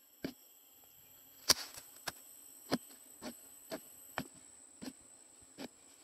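Insects trilling steadily in two high tones, with a series of sharp knocks about every half second; the loudest knock comes about one and a half seconds in.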